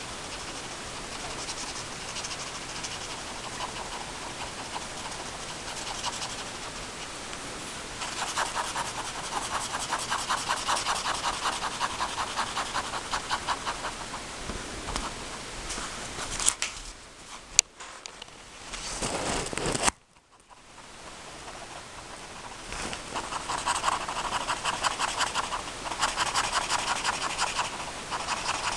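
Pencil tip scratching and rubbing on paper in quick, rhythmic back-and-forth strokes while shading a dark area. About halfway it stops, with a couple of sharp clicks and a moment of near silence, then the shading strokes start again.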